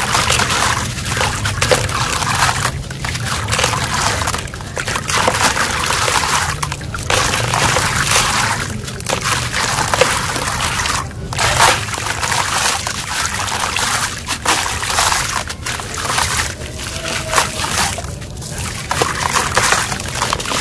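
Handfuls of wet, gritty cement crumble poured and dropped into a tub of water, the grit trickling and splashing into the water in repeated pours with brief pauses between.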